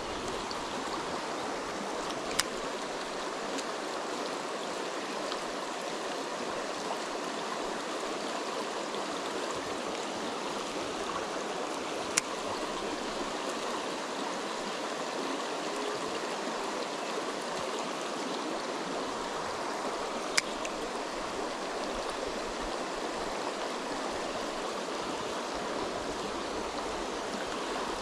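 Shallow mountain trout creek running over rocks and riffles, a steady rushing of water. Three brief sharp clicks stand out, spaced several seconds apart.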